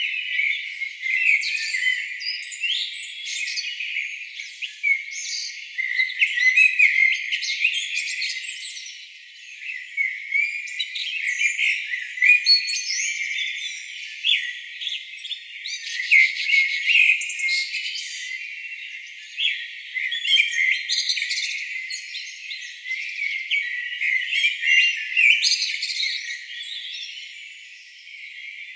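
Songbird chorus: many overlapping short chirps, trills and whistles from several birds, dense and continuous, sounding thin, with nothing below a high cutoff.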